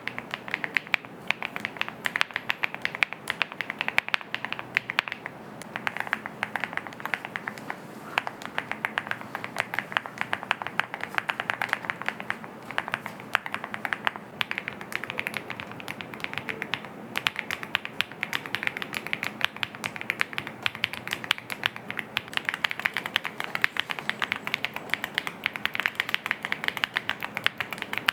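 Continuous typing on a TacWorks TAC-K1, a 65% aluminium gasket-mount mechanical keyboard: a steady stream of fast, sharp keystrokes.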